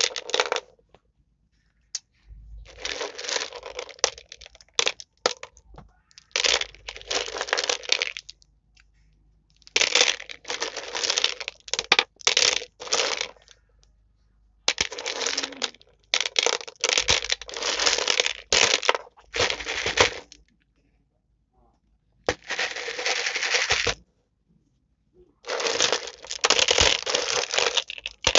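Jumbo cherry gumballs being stirred and handled on a plastic mesh tray: stretches of clicking and rattling as the balls knock together and against the tray, each lasting one to three seconds, with short pauses between.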